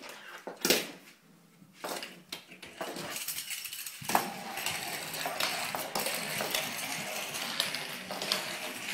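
A few sharp knocks, then from about four seconds in a small plastic pull-along baby toy rattling and clicking steadily as it is dragged on its string across a wooden floor.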